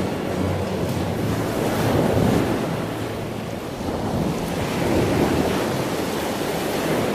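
Sea waves breaking and washing back: a steady rush of surf that swells twice, about two seconds in and again near five seconds.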